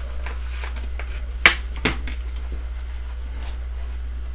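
Hands handling a small clear plastic parts box and its foam insert: light scrapes and ticks, with two sharp plastic clicks about a second and a half in. A steady low hum runs underneath.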